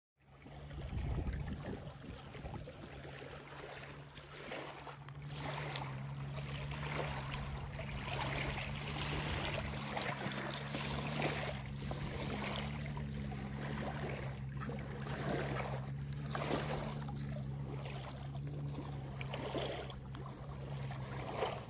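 Small boat moving on a lake: water splashing and lapping against the hull in uneven surges, over a steady low motor hum.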